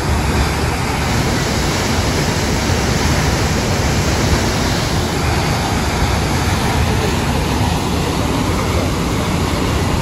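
Waterfall rushing: a loud, steady wash of white-water noise from the river pouring down a rocky gorge close by.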